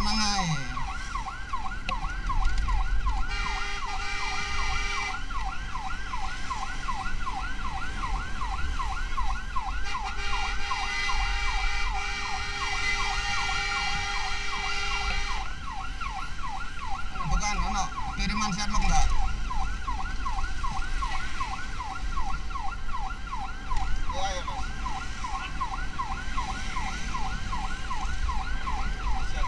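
Emergency vehicle siren in fast yelp mode, sweeping up and down several times a second without a break, over a low vehicle rumble. A second steady tone joins it briefly about three seconds in and again from about ten to fifteen seconds.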